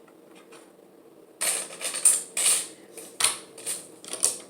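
Loose plastic Lego bricks clattering and rattling as hands rummage through a pile of pieces. It comes in a quick run of bursts and clicks, starting about a second and a half in.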